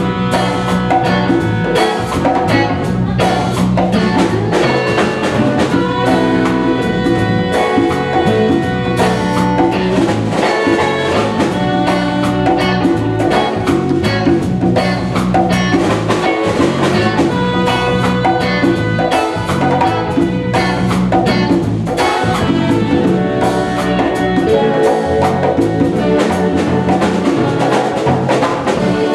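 A small jazz band playing live: two saxophones, one a tenor, over a drum kit, a conga-style hand drum and an electric guitar.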